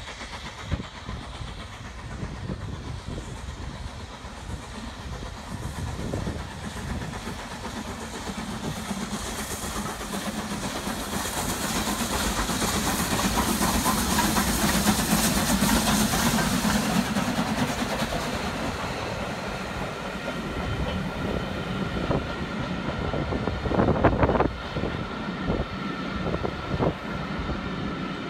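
Two steam locomotives double-heading a passenger train, BR Standard Class 4 2-6-0 76084 and LMS Jubilee 4-6-0 45690 Leander, passing under steam. The sound grows to its loudest about halfway through as the engines go by. Near the end the coaches roll past, with sharp clicks of wheels over the rail joints.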